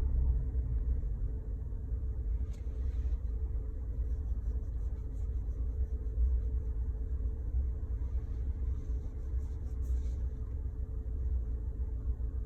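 2020 Ford Ranger's 10R80 ten-speed automatic transmission whining with one steady tone over the truck's low rumble. The owner takes the whine for a transmission fault.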